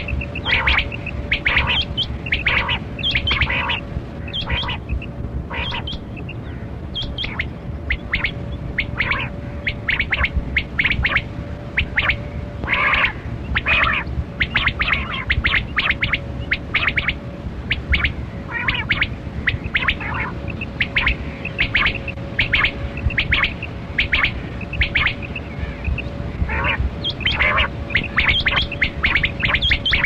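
Kali kirak quail (batera) calling: short, sharp notes repeated about once or twice a second, sometimes in quick pairs, over a steady faint hum.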